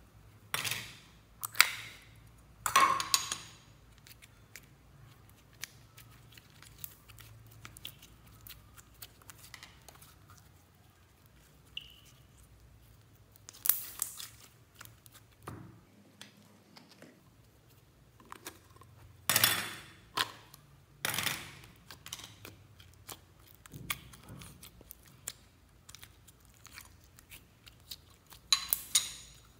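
Slime squeezed and kneaded by hand, giving irregular sticky crackles and pops of trapped air, with a few louder bursts spread through and quiet stretches between.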